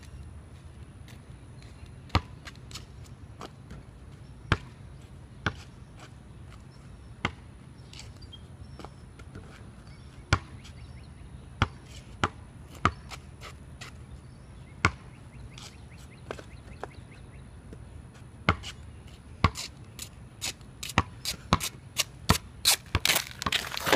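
A basketball bouncing on a concrete court: single bounces spaced a second or more apart, then quicker, louder dribbling in the last few seconds.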